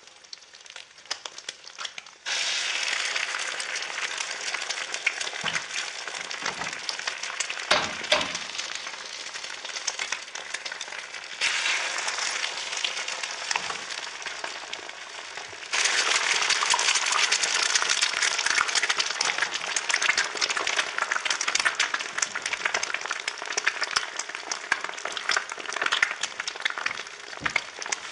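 Egg frying in hot oil in a pan: dense sizzling and crackling spatter. It jumps suddenly louder about two seconds in and steps up louder twice more later on.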